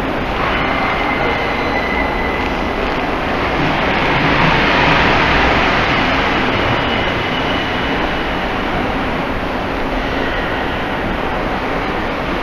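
Loud, steady rushing roar of an underground tiled pedestrian tunnel, swelling about halfway through, with faint high whining tones over it.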